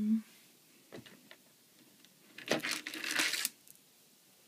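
Jewelry being handled: a click about a second in, then about a second of clinking and rustling as a resin pendant on its beaded chain is picked up.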